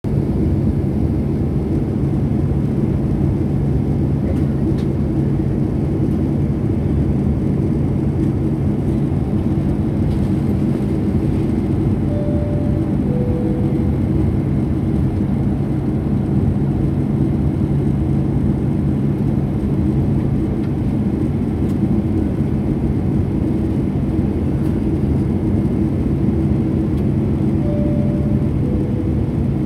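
Steady cabin noise of a Boeing 747-8 in flight: a deep, even rumble of engines and airflow with a low hum, heard from a window seat over the wing. A two-note falling cabin chime sounds twice, about twelve seconds in and again near the end.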